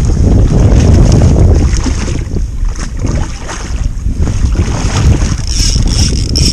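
Strong wind buffeting the microphone: a loud, uneven low rumble that eases a little about two seconds in and builds again.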